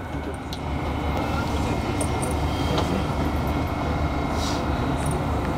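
Dubai Metro train running between stations, heard from inside the carriage: a steady rumble of wheels on rail with a faint steady high whine.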